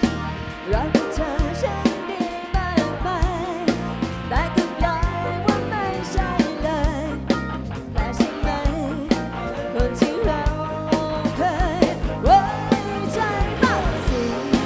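Live rock band playing: drum kit hitting a steady beat under a bass line and electric guitars, with a wavering melody line on top.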